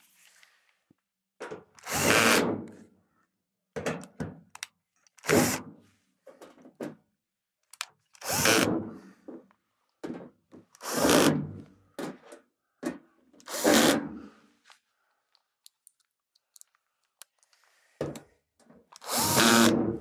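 Cordless drill/driver with a 1/4-inch hex nut driver driving screws into a dryer's sheet-metal console panel, in a series of short runs of about a second or less, with pauses between them as it moves from screw to screw.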